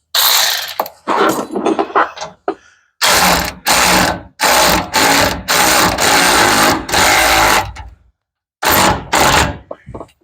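Bolts being tightened on the bumper mounts with a hand tool: a run of short mechanical bursts, about two a second, broken by brief pauses.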